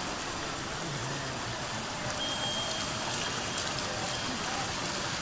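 Steady hiss of rushing water, an even wash of noise without distinct splashes. Faint voices come through underneath it.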